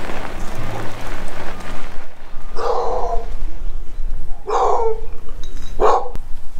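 A dog barking three times, loud and short, about two seconds apart. The barks come after a couple of seconds of rushing noise.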